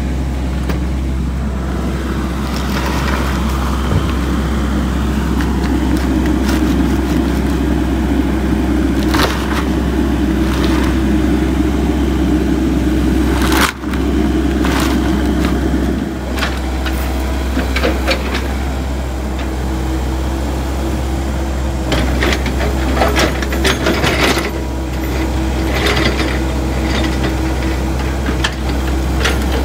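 Komatsu mini excavator's diesel engine running steadily, with scattered knocks and scrapes in the later part.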